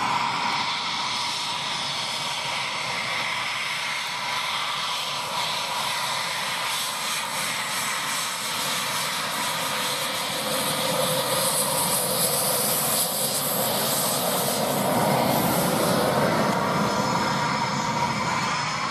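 Eurofighter Typhoon fighter jet's twin EJ200 turbofan engines running: a continuous jet rush with a high steady whine. It swells somewhat louder about three quarters of the way through.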